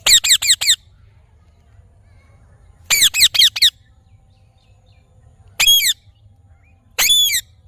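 Parrot squawking: a quick run of about five shrill calls, each falling in pitch, then a second run of about five some three seconds later, then two single longer calls near the end.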